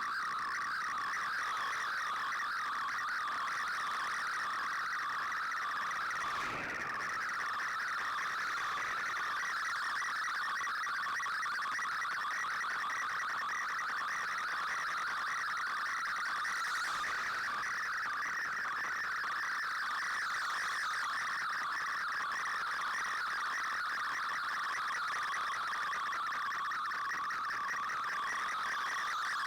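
Shortwave digital-mode data signal received on an Icom IC-R8600: a continuous dense warble of rapidly shifting tones, with a brief dip in level about six seconds in.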